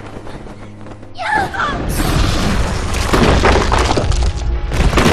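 Film action sound effects: a short cry about a second in, then from about two seconds in a loud, dense run of crashes and shattering impacts over music.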